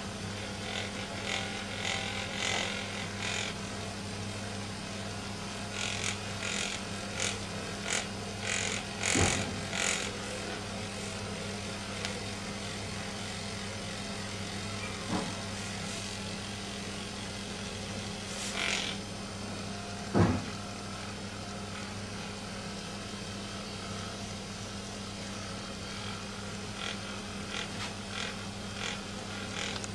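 Corded Magnessage electric vibrating massager running with a steady low hum while pressed against a cat's fur, with bursts of rustling as the head moves over the fur and two sharp knocks, about nine and twenty seconds in.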